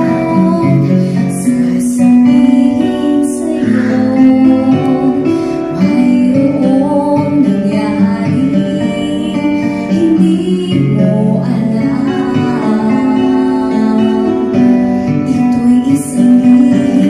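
A woman singing a slow melody with long held notes into a handheld microphone, over a guitar accompaniment.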